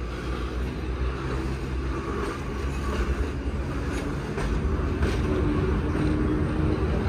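Vintage New York City subway train rolling slowly past on the elevated track: a low rumble with a wheel click over the rail joints about once a second, growing louder, and a steady motor hum joining about five seconds in.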